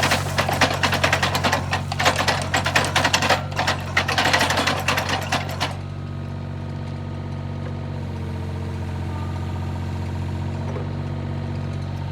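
Excavator's diesel engine running steadily, with a rapid metallic clatter over it that stops about six seconds in, leaving the engine on its own.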